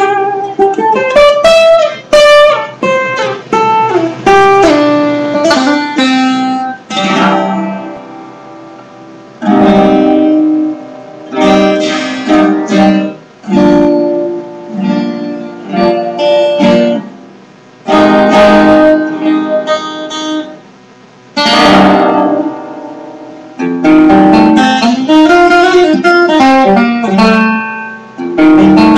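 Acoustic guitar played solo: quick runs of picked notes, with slower strummed chords left to ring out in the middle.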